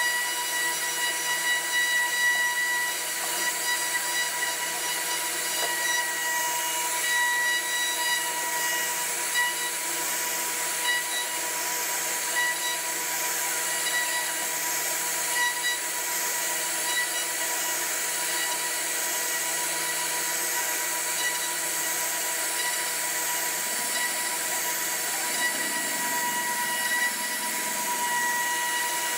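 CNC router running steadily, its spindle giving a constant high whine over a continuous hiss as it carves wood, with small irregular cutting noises.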